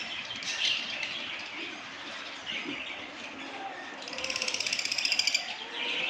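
A flock of caged lovebirds chirping and chattering continuously. About four seconds in comes a louder, fast rattling run of pulses, roughly ten a second, lasting just over a second.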